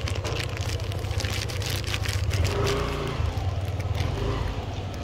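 Clear plastic bag crinkling and rustling as food is shaken out of it for kittens, many small crackles over a steady low rumble.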